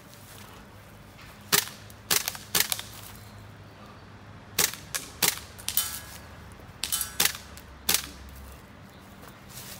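GHK M4 gas-blowback airsoft rifle with a GBL short bolt firing about ten single shots at irregular intervals. A few shots are followed by a brief metallic ring.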